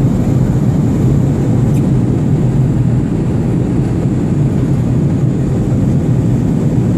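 Aeroplane in flight: a steady low drone of engines and rushing air, unchanging throughout.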